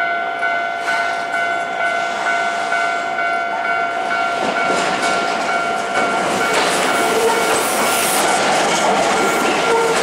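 Japanese level-crossing warning bell ringing a steady repeating electronic tone, as an Osaka Metro Sakaisuji Line commuter train approaches and passes close by. Its running noise and wheel clatter swell from about halfway in and are loudest near the end.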